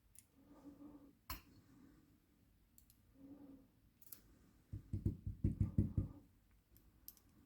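Small metallic clicks and taps from the pins and springs of an ASSA 700 lock being handled as they are taken out of its pin chambers. There is one sharp click about a second in, and a quick run of dull low taps around five to six seconds in.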